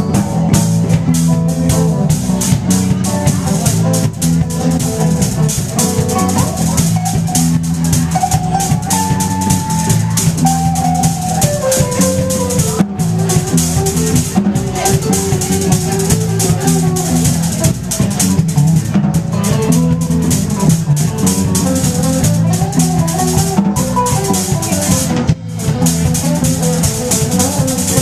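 Live rock band instrumental: a Stratocaster-style electric guitar plays a lead line with sliding and bent notes over a drum kit keeping a busy beat with cymbals.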